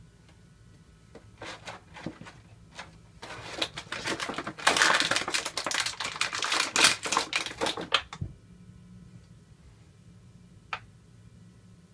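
Thin clear plastic blister tray crackling and clicking as a PVC toy figure is pried out of it. There are a few scattered clicks, then about five seconds of dense, loud crackling, then quiet with a single sharp click near the end.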